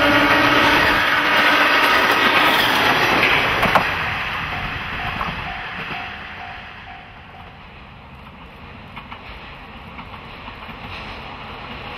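Two-car KiHa 40 series diesel railcar train passing close by and rolling away, its wheels clattering on the rails and the noise fading over about six seconds. A horn note trails off about two seconds in.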